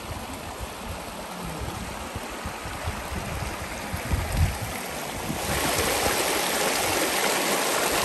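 Mountain creek water rushing over rocks, a steady hiss that grows louder and brighter about five and a half seconds in, with a brief low thump a little after four seconds.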